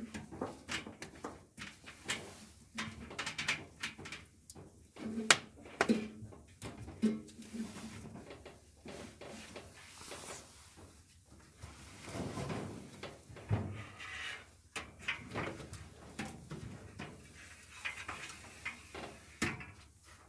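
Irregular clicks, knocks and scraping of Frigidaire dryer panels and parts being handled and fitted back together, with a few louder clunks.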